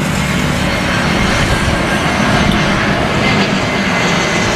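Passenger airplane engine sound effect: a steady rushing noise with a low hum beneath it that cuts off suddenly.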